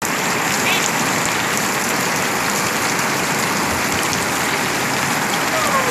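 Heavy rain falling steadily on wet ground and puddles.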